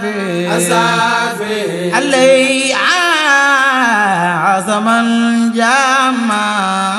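A male voice chanting a Mouride khassida, an Arabic devotional poem, in long gliding melismatic phrases over a steady low held drone.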